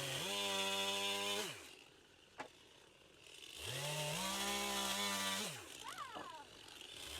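Electric power saw crosscutting boards to length, twice: each time the motor spins up, runs steady through the cut for about a second and a half, and winds down. A single sharp click sounds between the two cuts.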